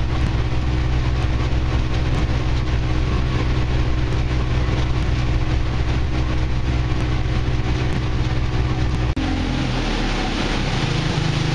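An engine running steadily. About nine seconds in the sound cuts abruptly to a different, steady engine note.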